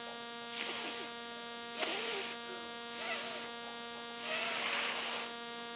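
Steady electrical mains hum with a buzz, and four short hissing noises in the first five seconds, the last one the longest.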